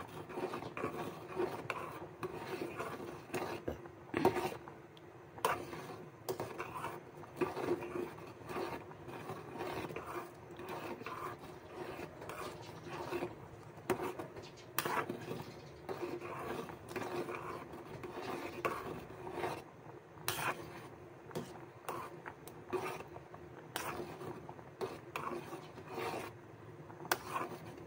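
A metal spoon stirring macaroni in boiling water, scraping and knocking irregularly against the bottom and sides of a metal pot to keep the pasta from sticking.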